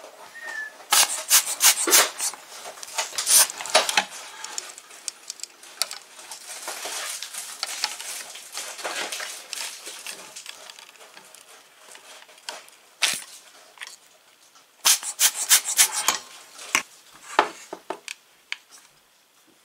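Sharp metallic clinks and clicks in two clusters, about a second in and again around fifteen seconds, with softer scraping and rubbing between them: a soldering iron, its stand and a metal radio chassis being handled on a workbench.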